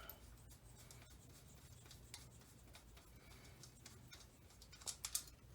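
Near silence with faint scraping and light metallic clicks of small parts being handled while the cam chain tensioner's center nut is worked off, and a few sharper clicks near the end.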